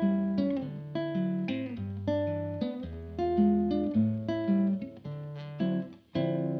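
Background music: acoustic guitar playing plucked chords over a moving bass line, with no singing.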